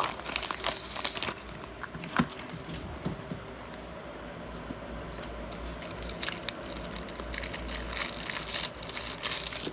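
Small packaging crinkling and rustling as it is handled and opened by hand. The crinkling comes in bursts of little crackles near the start and again in the last few seconds, with a quieter stretch between.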